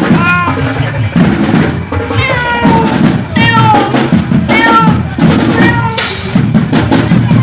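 A domestic cat meowing over and over, roughly once a second, each call rising and falling in pitch, over background music with a steady drum beat.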